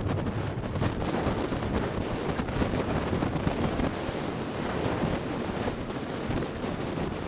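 Wind rushing over the microphone of a camera on a moving bicycle: a steady, deep, noisy rush with no clear rhythm.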